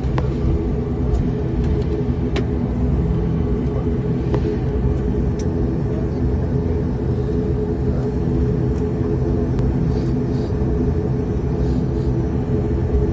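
Turboprop airliner's engine and six-blade propeller running steadily, heard from inside the cabin: a constant drone with several held low tones.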